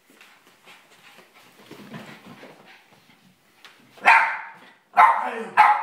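Boston terrier barking excitedly in play: three loud, sharp barks, the first about four seconds in, after a quieter stretch.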